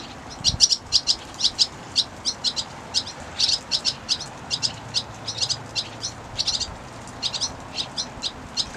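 Small birds chirping over and over: quick, high chirps, about three or four a second.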